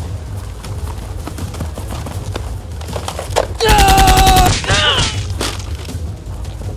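A burst of rapid automatic gunfire, about a second long and a little past the middle, over a steady low rumble and scattered clicks.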